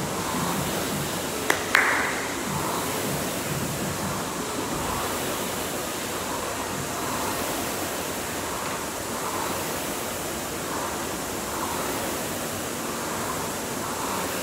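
Concept2 rowing machine's air-resistance flywheel fan whooshing steadily under hard rowing, swelling with each stroke. A sharp double clack sounds about a second and a half in.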